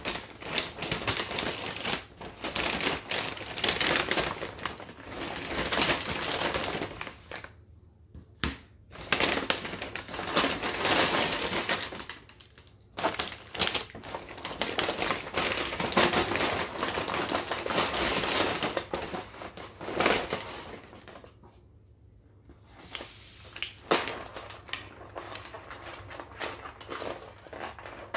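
Paper takeout bag rustling and crinkling in bursts as food containers are pulled out of it and set down on a counter, with light clicks and knocks.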